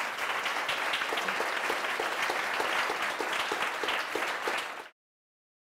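Small audience applauding, a dense patter of hand claps that cuts off suddenly near the end.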